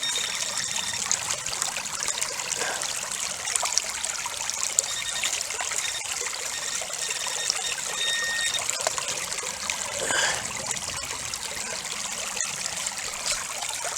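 Shallow creek water running and trickling steadily over rocks, with a few light knocks from digging in the creek bed.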